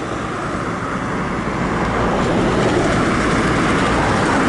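Steady rushing noise of riding a bicycle along a street: wind on the microphone and tyres on the asphalt, growing a little louder over the first couple of seconds.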